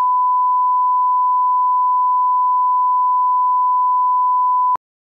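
Steady 1 kHz line-up tone accompanying a broadcast countdown clock: one pure, unchanging pitch that cuts off abruptly with a click near the end.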